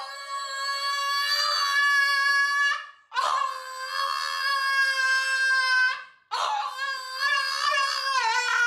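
A French bulldog howling: three long, high-pitched calls of about three seconds each, the last one wavering up and down.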